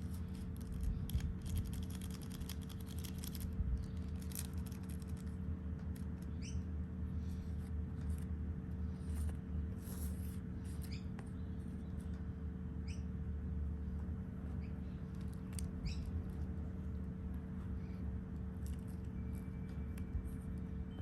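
Light rustling and small clicks from sowing tiny flower seeds out of a paper packet into a seed tray, with a quick run of ticks in the first few seconds, over a steady low hum. A few short high chirps come and go.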